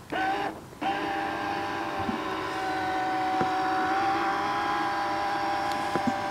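Toy RC fishing boat's electric motor running with a loud, steady whine as the boat drives off across the water. It gives a short burst right at the start, drops out for a moment, then runs continuously from about a second in.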